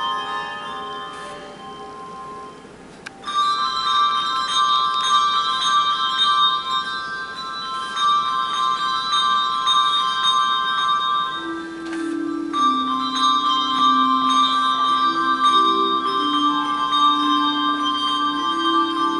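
Handbell choir playing a hymn arrangement. Ringing chords die away, then about three seconds in a loud new chord is struck and rings on. A little past the middle, lower bells join with a moving line of notes.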